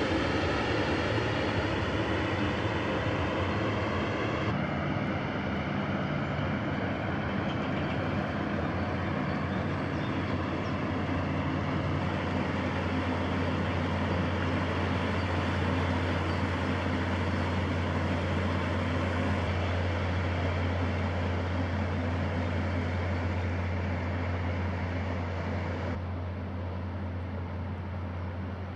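Inland tanker barge passing close by: its engine drones steadily, growing stronger as the stern comes past, over a constant rushing of water along the hull. The sound drops a little near the end.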